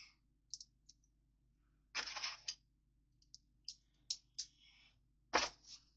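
Plastic Lego pieces being handled and sorted: scattered small clicks, with a short rattle of pieces about two seconds in and another near the end.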